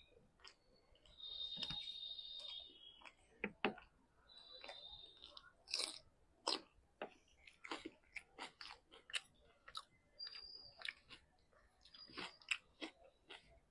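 A person chewing food close to the microphone, with many short wet mouth clicks and smacks. Flatbread (laccha paratha) is torn by hand near the start.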